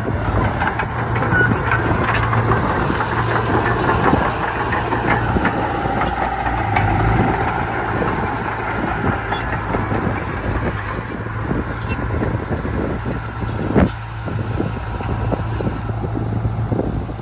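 Heavy diesel earthmoving machinery working: a steady engine drone with scattered clanks and knocks, and one sharp knock about 14 seconds in.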